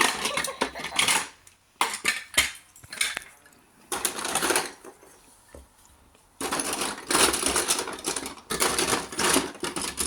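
Marbles clicking and rattling along a marble run, in bursts of dense clatter with single sharp clicks and quieter gaps between them.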